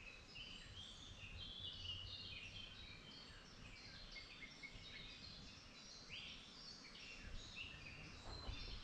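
Faint songbirds singing: many short, high chirps and whistled notes overlapping, over a low steady rumble.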